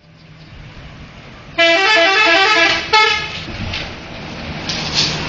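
Indonesian telolet bus horn, a multi-trumpet musical air horn, playing a fast alternating melody for about a second and a half. It cuts off suddenly and gives way to the bus's engine and road noise.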